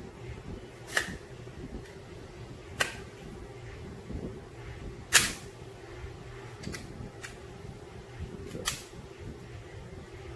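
Sharp metallic clicks of a SIG Sauer P320 pistol's slide being worked on its frame, six in all, the loudest a little over five seconds in.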